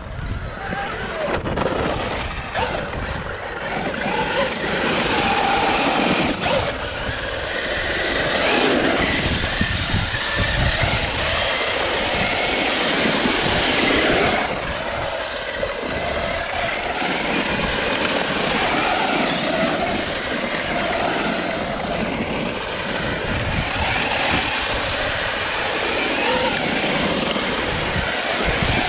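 Traxxas UDR radio-controlled desert truck driven on 6S LiPo power: its brushless motor whine rises and falls with the throttle over a steady rush of noise.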